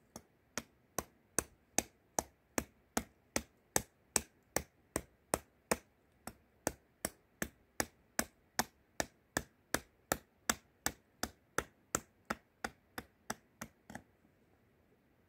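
Hatchet chopping a wooden spoon blank on a chopping block: a long run of quick, even, sharp strikes, about two and a half a second, that stops about a second before the end.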